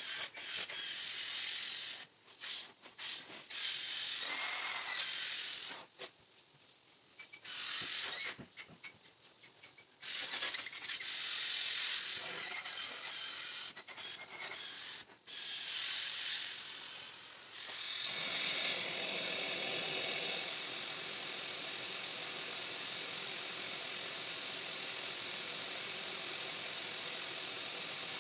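Steam-cleaning extractor's vacuum hose and upholstery hand tool working a small fabric chair: a high-pitched whistling squeal from the suction that cuts in and out with each stroke. About two thirds of the way through it settles into a steady whistling hiss.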